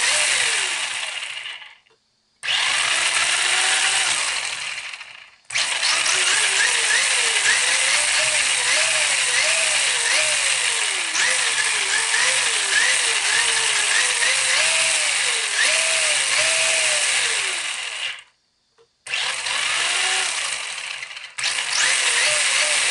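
Newly fitted brushless motor and gear drivetrain of a Tamiya Gravel Hound RC buggy spinning the wheels freely off the ground, throttled up and down on the transmitter during its first test run. A whirring whine whose pitch rises and falls over and over, in several long spells with brief stops between them.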